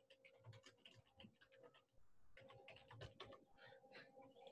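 Near silence, with faint scattered clicks and taps of typing on a computer keyboard and a faint steady hum.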